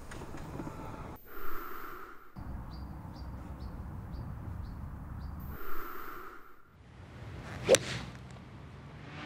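A golf club striking a ball off the tee: one sharp, very short crack near the end, the loudest sound, over outdoor ambience.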